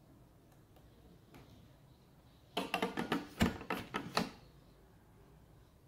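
A quick run of sharp knocks, about six or seven in under two seconds, from a glass baking dish full of cake batter being knocked against the counter.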